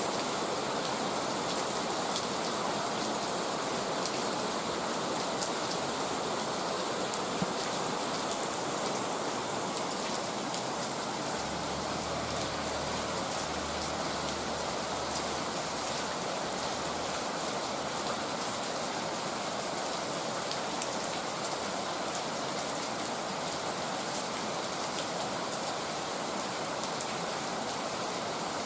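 Heavy rain falling steadily: a dense, even hiss with individual drops ticking sharply on surfaces.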